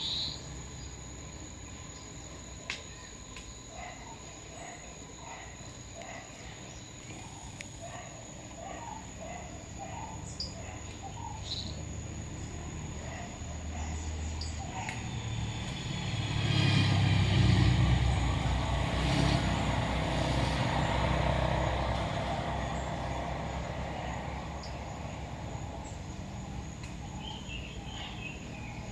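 Outdoor ambience: a steady high-pitched insect note and scattered small bird chirps. Past the middle, a motor vehicle passes, swelling to the loudest sound and then fading away.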